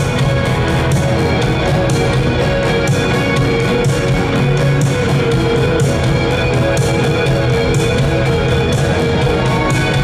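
Live rock band playing, electric guitar over drums with a steady cymbal beat.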